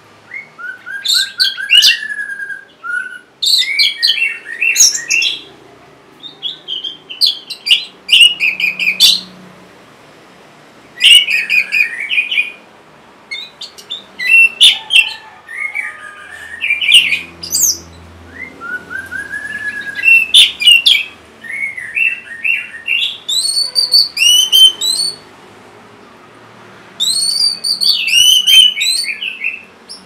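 Orange-headed thrush singing a varied song. Its phrases of clear whistles, rising and falling notes and rapid chirping trills each last a second or two, with short pauses between.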